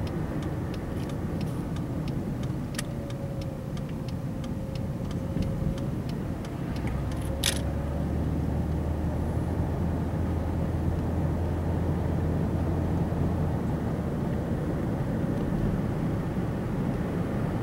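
Fourth-generation Ford Taurus engine idling after a leaking coolant hose clamp was replaced, run to check for leaks. It is a steady low rumble with light regular ticking over the first few seconds and a single sharp click about seven seconds in. A deeper hum joins in for several seconds in the middle.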